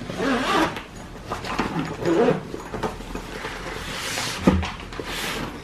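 Zipper being run open around a padded nylon carry bag, with rustling of the fabric as the lid is lifted and a dull thump about four and a half seconds in. A couple of short voice-like sounds come early on.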